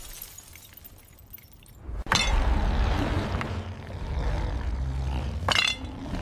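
A sound-effect crash with a shattering edge about two seconds in, followed by a steady rumbling noise, and a second sharp hit near the end.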